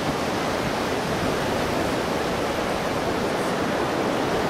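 Steady, even rush of ocean surf breaking on the beach.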